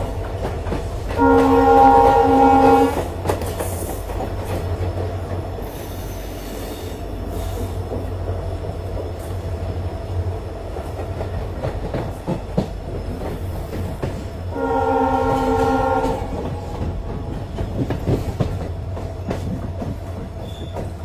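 WDG-class diesel locomotive sounding its multi-tone horn: a blast of about two seconds soon after the start, and another of about a second and a half about fifteen seconds in. Between the blasts its diesel engine runs with a steady low drone as it accelerates.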